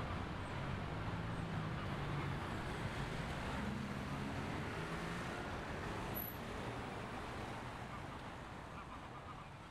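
Steady drone of engines with a noisy rush, fading gradually over the last few seconds.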